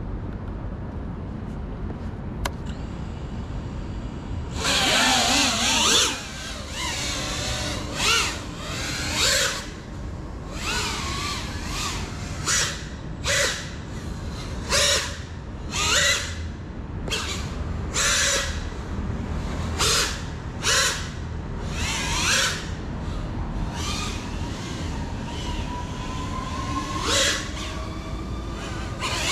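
GEPRC Cinelog 35 cinewhoop's motors and propellers whining in repeated throttle punches, each about a second long, the pitch rising and falling with the stick. The bursts begin about four and a half seconds in, over a steady background noise.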